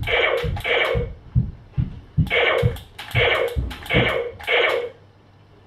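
Nerf Laser Ops Pro AlphaPoint laser blaster firing: about six short electronic shot sounds from its speaker, each starting with a sharp click, loosely in pairs, stopping about a second before the end.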